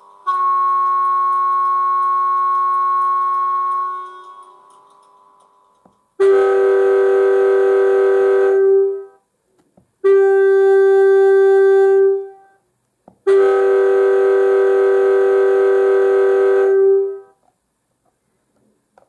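Two-tone train horn of a Class 91 and Mk4 DVT, played as a recording through a model train's DCC sound decoder speaker. First comes one long high-pitched blast, then three long low-pitched blasts with short pauses between them.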